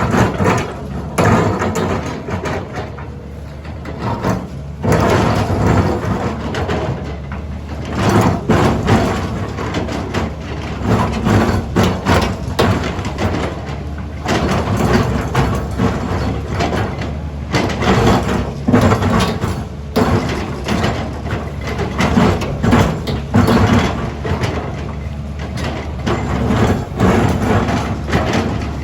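Cat 320D excavator's diesel engine running under load while its bucket teeth scrape and knock against rock, with irregular grinding and thuds over a steady engine drone.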